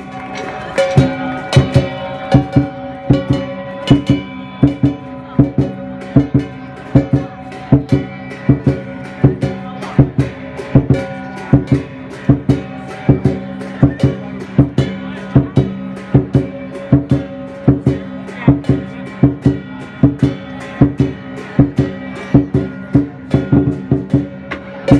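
Music with a steady beat of about two sharp strikes a second over sustained held tones.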